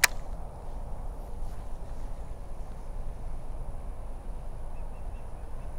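Outdoor pond-side ambience: a steady, fluctuating low rush of wind on the microphone, with one sharp click at the very start. Near the end comes a quick run of faint high chirps, about half a dozen.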